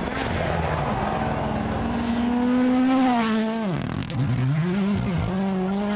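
Rally car engine running hard, its pitch climbing steadily, then dropping sharply about three and a half seconds in as the revs fall, and picking up again.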